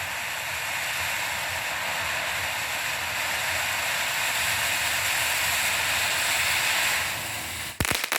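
Small cone firework fountain (TNT Fireworks Sparkling Flower Pots) burning with a steady hiss of spraying sparks. The hiss fades after about seven seconds, and near the end a couple of sharp pops start a crackle.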